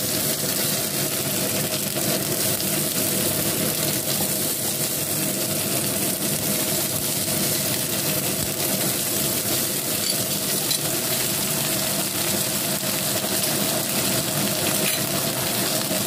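Slices of Chinese radish cake sizzling steadily as they fry in a nonstick pan, with a steady motor hum underneath.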